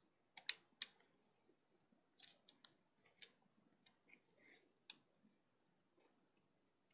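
Irregular light clicks and snaps of rubber bands being stretched onto the pegs of a plastic Bandaloom, the sharpest pair about half a second in, then thinning out and stopping about five seconds in.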